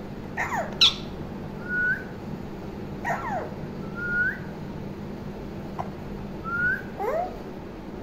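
Alexandrine parakeet calling: short squawks that slide down in pitch, traded with short rising whistle notes, about three of each spread across the stretch. A sharp click, the loudest sound, comes about a second in.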